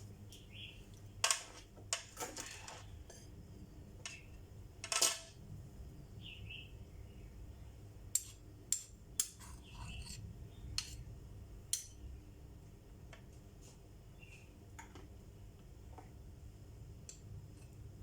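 Utensil clinking and tapping against a bowl and muffin mould while batter is spooned into the cups: irregular light taps with a few sharper clinks.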